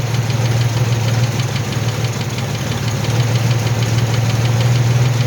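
Carbureted 3.8 V6 of a 1983 Mustang idling steadily, heard from underneath the car: a steady low hum with a fast, even ticking. It is running on fuel poured into the carburettor bowl while the fuel pump's output is being tested.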